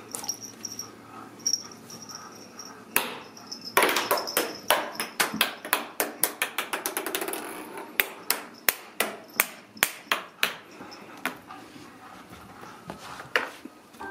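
Ragdoll kittens scrambling and jumping on bare wooden stair treads: a rapid run of light knocks, about three or four a second, for several seconds, then a few more near the end.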